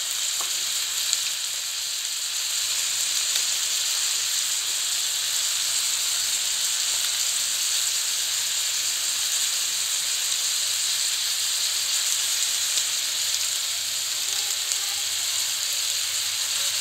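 Sliced bitter gourd, tomato and onion sizzling steadily in an oiled frying pan: a constant high hiss of the vegetables sautéing.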